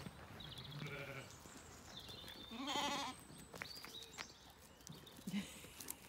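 Sheep bleating twice: a low call about a second in, then a louder, wavering call near the middle. A few faint clicks follow.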